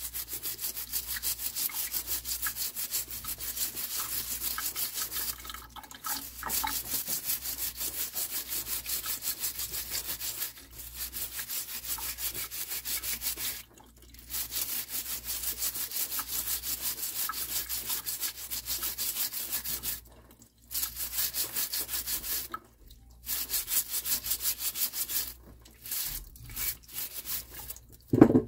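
Stiff plastic scrub brush scouring wet Jerusalem artichoke tubers: rapid back-and-forth scrubbing strokes in runs of a few seconds with short pauses between, and a brief thump near the end.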